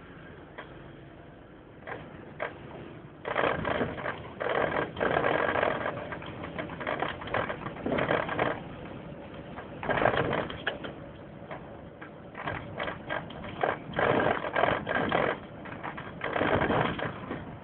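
Cabin noise of a moving vehicle: steady engine and road rumble with irregular bursts of rattling and clattering, heaviest from about three seconds in.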